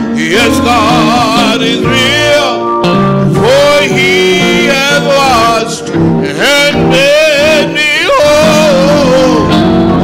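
Gospel song: a man sings slow, sliding, ornamented runs with vibrato over electric guitar and keyboard accompaniment.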